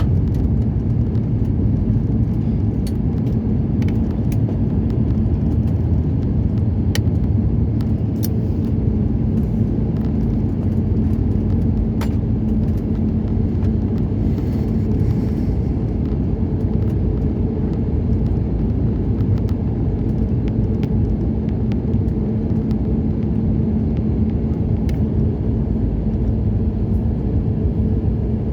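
Airliner cabin noise: a steady low rumble with a steady hum from the aircraft, and a few faint clicks.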